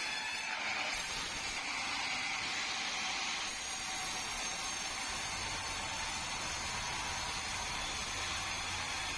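Sawmill machinery running steadily, a high whine over a hiss. About four seconds in the upper hiss drops away and a low rumble comes up.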